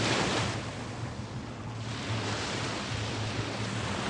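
Ocean surf washing on the shore, with wind rumbling on the microphone. The wash is loudest at the start, falls away about a second in, and builds again.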